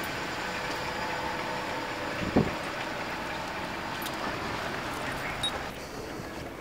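Street ambience with the steady noise of road traffic, and a single sharp thump about two and a half seconds in.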